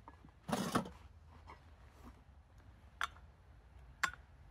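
Handling noises: a short rustling scrape about half a second in, then two sharp clicks about a second apart.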